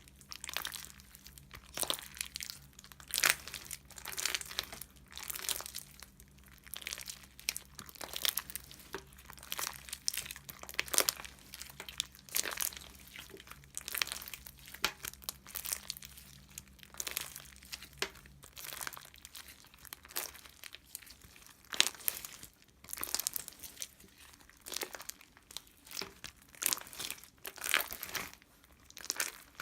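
Close-up crinkling and crackling, like something being crumpled in the hands, in irregular sharp crackles several times a second.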